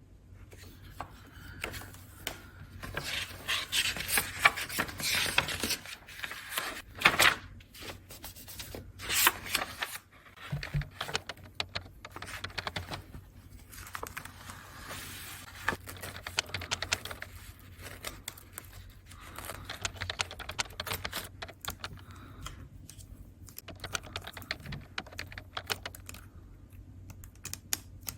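Close-miked diary-decorating handling sounds: a steady run of small taps and clicks mixed with scraping and rustling of paper, with a few louder tearing-like swipes in the first half.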